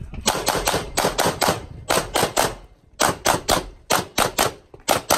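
Walther Q5 Match Steel Frame 9mm pistol firing rapidly in fast strings of three or four shots, with short pauses between strings.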